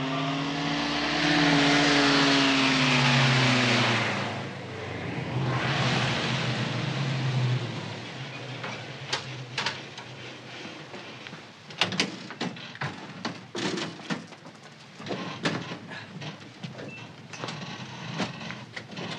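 An ambulance van drives up and passes, its engine and tyres loud for the first few seconds, with a second, weaker pass a few seconds later. Then a run of sharp clicks and knocks as the stretcher and equipment inside the ambulance are handled.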